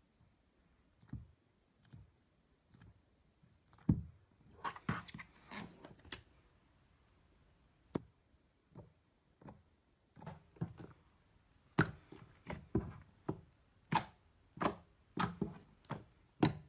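Close-up ASMR handling of a slime or soap material: a series of sharp, crisp clicks and crunches, sparse at first and coming quicker in the last few seconds.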